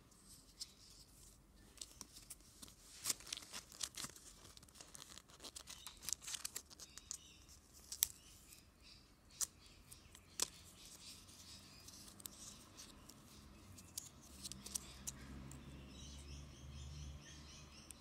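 Close handling of a Kinder Joy egg's plastic parts and wrapping: crinkling and scattered sharp plastic clicks in the first half, then a low rubbing rumble in the last few seconds.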